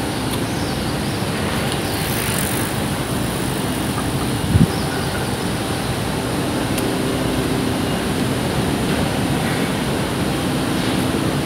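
Steady outdoor ambient roar, with one short low thump about four and a half seconds in.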